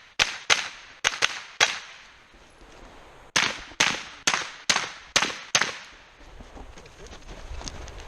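Rifle shots fired rapidly during a timed steel-match string: about five quick cracks in the first second and a half, a pause, then six more at roughly half-second intervals.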